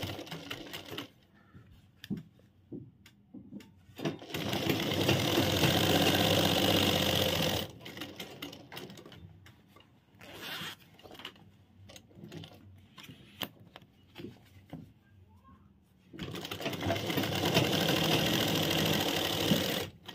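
Sewing machine stitching a zipper onto a trouser fly in two steady runs of about three and a half seconds each, one a few seconds in and one near the end. Between the runs there are small clicks and rustling as the fabric and zipper are adjusted by hand.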